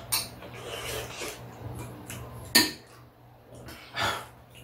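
Metal spoons clinking and scraping against ceramic bowls while eating, with a few separate sharp clinks; the loudest comes about two and a half seconds in.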